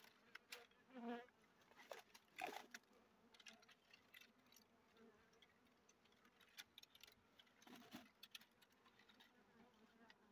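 Faint, steady buzzing of a cluster of dwarf honey bees covering a small open comb. Scattered light clicks and twig rustles run through it, a little louder about one and two and a half seconds in and again near eight seconds.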